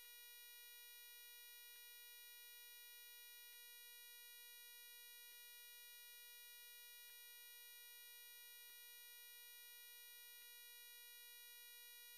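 Near silence apart from a faint, steady electronic tone with many overtones, and a faint tick about every second and three-quarters.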